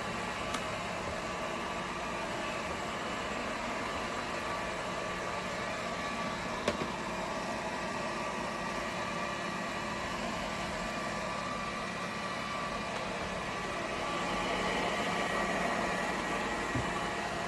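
Airzeen R7 robot vacuum cleaner running: a steady whir with a few thin, high steady tones over it. There are two sharp clicks, one just after the start and one about seven seconds in, and the whir grows a little louder near the end.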